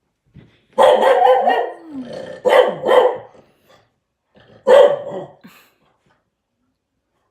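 Dog barking: a run of loud barks in the first three seconds, then one more bark a little before the five-second mark.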